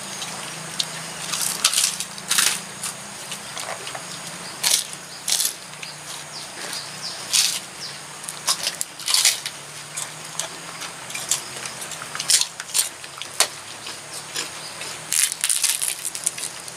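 Eating by hand from a shared spread: irregular sharp crunches and clicks of crisp fried food being broken and chewed, over a low steady hum.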